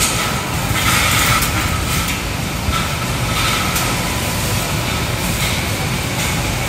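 Steady mechanical running noise of barn machinery, with a few brief hissy surges in the first four seconds.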